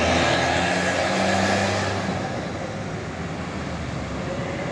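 Road traffic: a tour bus's engine running as it crosses and moves off, with motorbikes passing. The engine hum is loudest for the first two seconds, then fades into steady traffic noise.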